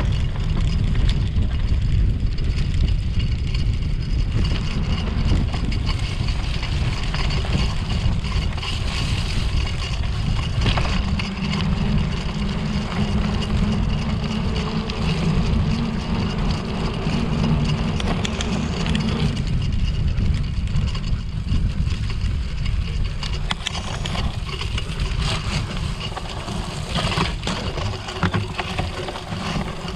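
Wind rumbling on the microphone of a camera carried by a cyclocross rider racing over rough ground, with the bike rattling and a few sharp knocks.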